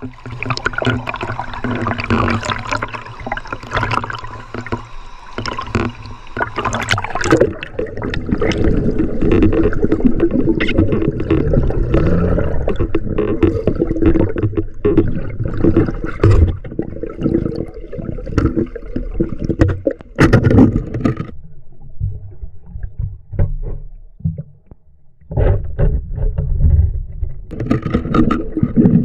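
River water gurgling and splashing, with many scattered knocks and clicks; it drops away for a few seconds about three-quarters of the way through.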